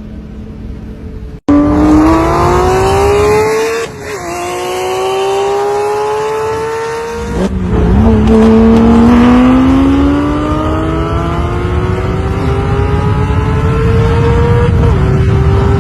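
High-performance sports car engine accelerating hard through the gears: its note climbs steadily and drops sharply at each upshift, three times. Before that a quieter engine sound cuts off abruptly about a second and a half in.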